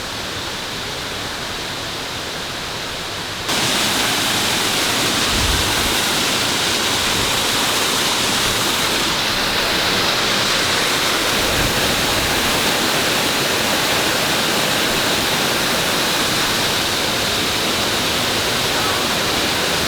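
Waterfall: a steady rush of falling water, which gets abruptly louder about three and a half seconds in and then holds. The fall is thought to be running extra high after recent typhoon rain.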